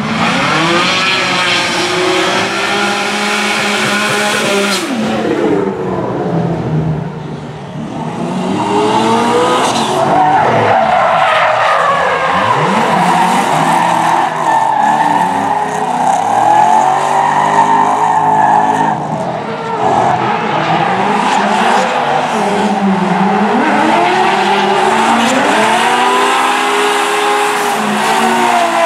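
Drift cars running hard through a corner: tuned engines revving, their pitch rising and falling with throttle and gear changes, over continuous tyre squeal from the sliding tyres. It dips for a moment a few seconds in, then comes back louder.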